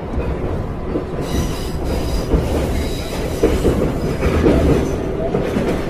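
Subway train running, a steady rumble and rattle of the car, with a faint high squeal of the wheels between about one and two and a half seconds in.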